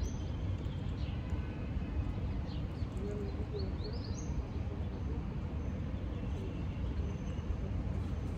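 Wind rumbling steadily on the microphone, with small birds chirping now and then in short, high, rising calls.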